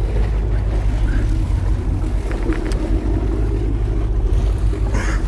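Fishing boat's engine running steadily as a low rumble, with wind and water noise over it.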